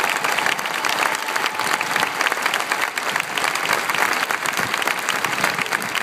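Large stadium crowd applauding: a steady, dense wash of thousands of hands clapping.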